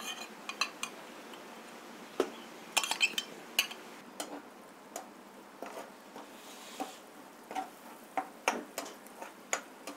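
Spoon and spatula scraping and tapping as a spiced yogurt masala is tipped from a glass bowl into a nonstick frying pan and stirred to fry, in scattered irregular clicks and scrapes, with a faint sizzle.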